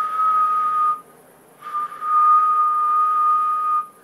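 A person whistling a steady single note into the microphone of a CB/ham transceiver as a whistle test on SSB, twice: about a second, then a longer whistle of about two seconds. The whistle drives the MOSFET final stage to about 15 watts output.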